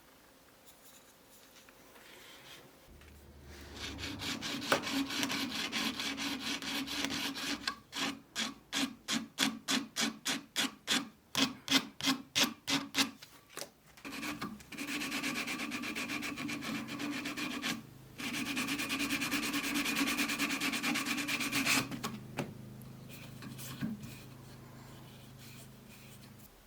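Hand abrading strokes, sanding or filing, rubbing across a surface. A steady scraping run is followed by quick back-and-forth strokes about two a second, then two more long steady runs; the last stops suddenly near the end.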